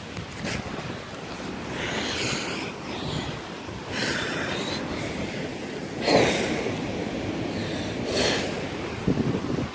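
Wind buffeting the microphone, with four louder whooshing rushes about two seconds apart.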